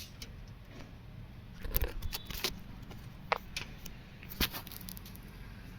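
A few irregular sharp clicks and light knocks over a low steady hum, the loudest cluster about two seconds in.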